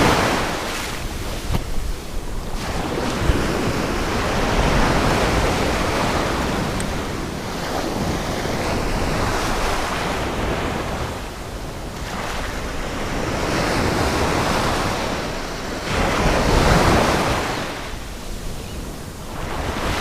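Surf breaking on a beach, swelling and fading every few seconds, with wind buffeting the microphone.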